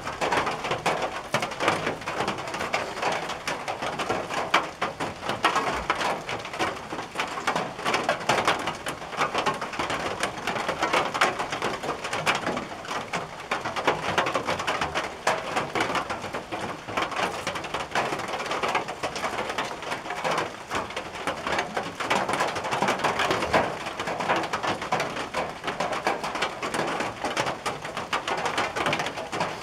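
Rain drumming steadily on a tin roof, a dense even patter of drops on the metal with no letup.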